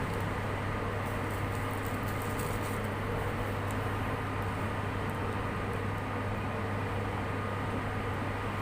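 A steady electrical hum with a faint thin whine over an even noise, unchanging throughout.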